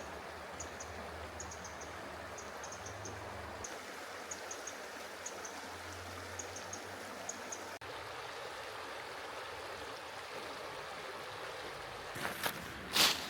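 Mountain stream flowing steadily. For the first several seconds, short high chirps of a small bird come in little runs. Near the end, a few loud crunches break in.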